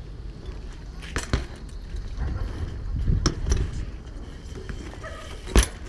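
BMX bikes rolling over paving stones with a low rumble of tyres and wind on the microphone, broken by several sharp knocks and clatters of the bikes, the loudest near the end.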